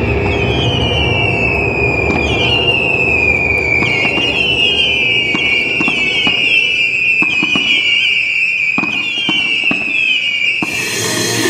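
Fireworks shells climbing on whistling tails: many high whistles overlap, each rising sharply and then sagging, with a low rumble beneath. Scattered sharp cracks join in from about four seconds in. The whistles cut off just before the end.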